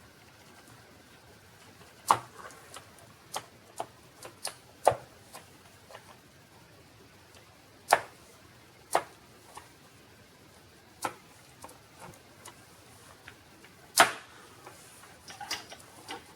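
Sharp plastic clicks and snaps at irregular spacing as a small flat-headed screwdriver pries an Acer Aspire 5741-A laptop keyboard up and its retaining tabs release. A quick run of smaller clicks comes near the end.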